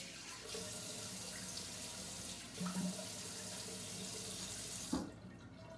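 Bathroom sink tap running as water is used to wet the face for a shave. The water is shut off near the end.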